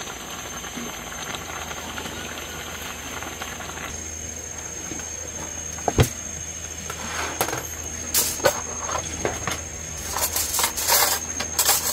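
Aluminium foil crinkling and rustling in irregular bursts as it is handled, after one sharp click about halfway through. A steady hiss runs under the first few seconds, and a thin high steady tone runs throughout.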